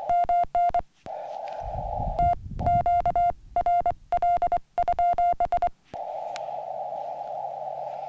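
Morse code sidetone from a Yaesu FT-817 as an N6ARA TinyPaddle keys it: a steady beep sent in dots and dashes, most likely the QRL call asking whether the frequency is in use. Hissy receiver noise fills the gaps before and after the keying, and a low rumble runs under it about two seconds in.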